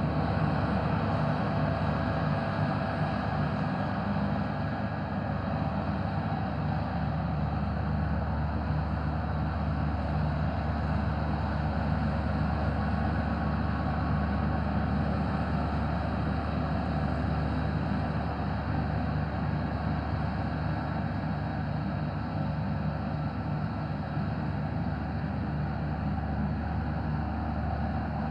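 Case 1490 tractor's four-cylinder diesel engine running steadily under load while driving its disc mowers through grass.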